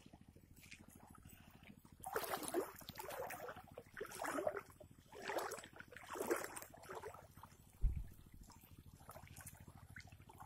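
Shallow water splashing in four or five strokes about a second apart, then a single low thump.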